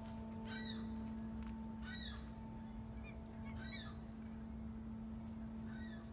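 Short animal calls repeated about every second and a half, over a steady low hum.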